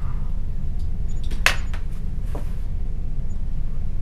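Steady low room rumble with a few light clicks and clinks of small objects being handled at a table, the sharpest about a second and a half in.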